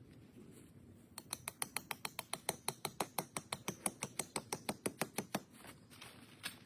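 A rapid, even run of sharp clicks, about eight a second, lasting roughly four seconds.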